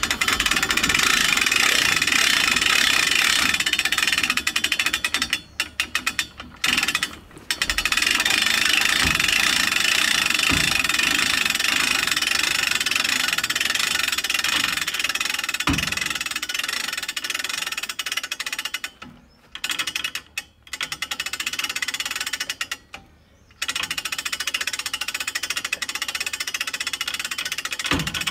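Winch motor running under load as it hoists a heavy nilgai carcass on a Jeep-mounted hoist pole. It runs in long stretches and stops briefly a few times.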